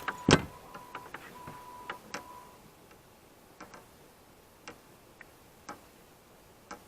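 A sharp knock, then scattered light clicks about once a second, with a faint steady tone in the first two or three seconds.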